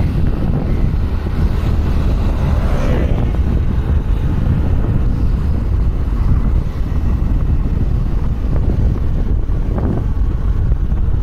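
Steady low wind rumble buffeting the microphone, over the road and engine noise of the moving vehicle it rides on.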